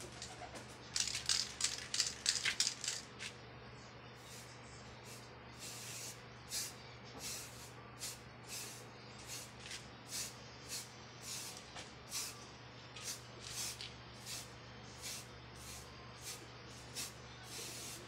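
Aerosol spray-paint can hissing in short spurts: a quick cluster in the first few seconds, then one brief spurt about every two-thirds of a second.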